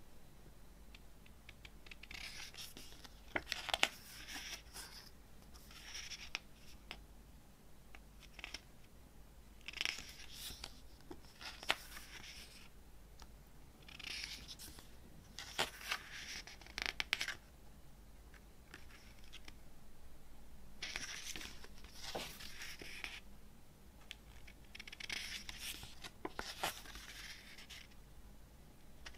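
Pages of a glossy paper CD booklet being turned one after another. Each turn is a short papery rustle with small clicks, coming every few seconds with quiet gaps between.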